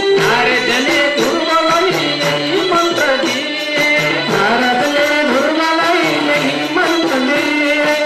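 Devotional bhajan music: singing over a steady, fast percussion beat.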